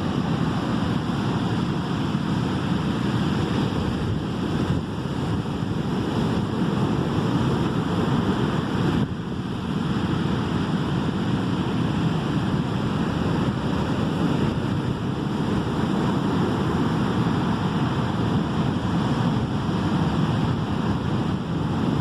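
Sea surf washing onto the shore in a continuous deep rush, swelling and easing slightly, with wind buffeting the microphone.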